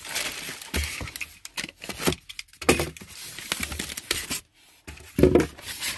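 Polystyrene foam packing box being handled and pried open by hand: irregular scraping, creaking and tapping of the foam, with a louder, squeaky scrape a little after five seconds in.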